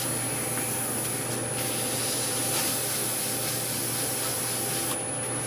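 Very fine abrasive paper rubbing on a spinning wooden goblet on a wood lathe: a steady sanding hiss over the lathe's constant hum and a thin high whine, the hiss stopping near the end as the paper comes off. It is the light final sanding after a shellac sealer coat, to knock down raised grain.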